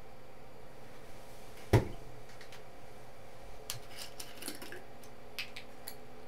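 A single sharp knock about two seconds in, then a scatter of faint clicks and clinks as a glass bottle is picked up and handled, over a steady low hum.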